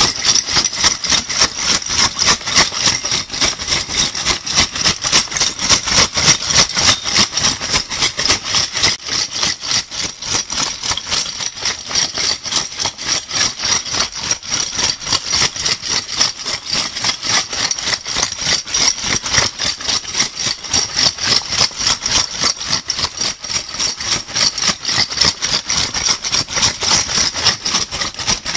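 Metal crown bottle caps shaken in a bag, a continuous jingling rattle in quick, even strokes, several a second.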